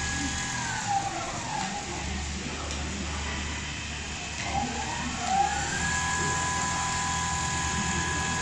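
Automatic CNC cushion-cover sewing machine running: a steady motor whine over a low hum. The whine glides down in pitch about a second in and climbs back to its earlier pitch about five seconds in.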